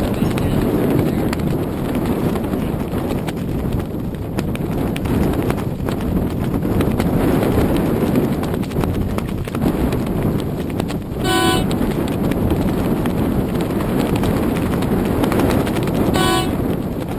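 Steady wind rumble on the microphone over choppy, lapping water, with two short horn toots about five seconds apart in the second half.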